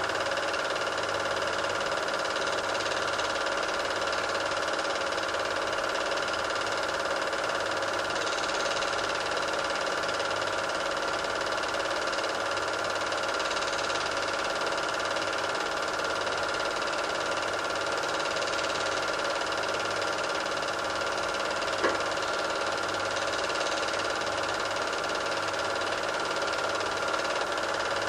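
Super 8 film projector running: a steady mechanical whirr and hum with a faint low pulsing, and a single sharp click about three-quarters of the way through.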